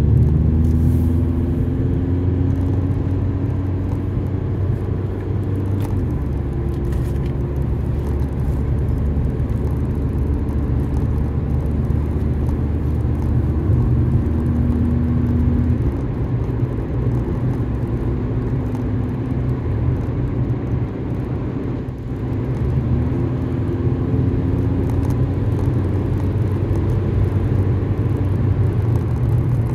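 Car engine and tyre rumble heard from inside the cabin while driving on a paved road. The engine note drops about a second in, holds steady until about halfway, and climbs again a little after two-thirds of the way through as the car picks up speed.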